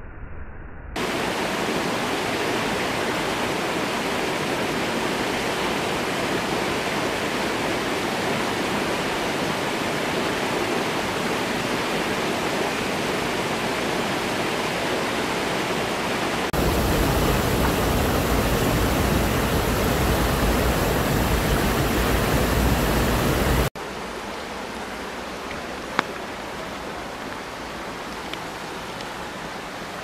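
Mountain stream water rushing and splashing over boulders, a steady rush. It grows louder about halfway through, then drops suddenly to a softer rush about three-quarters of the way in, with a single sharp click near the end.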